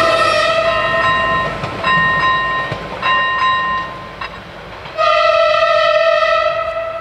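Two-tone horn of a Siemens Desiro railcar sounding in blasts as the train clears the level crossing: a long note, two shorter notes at a different pitch, a short lull, then another long note about five seconds in. The railcar's running rumble fades under it as it pulls away.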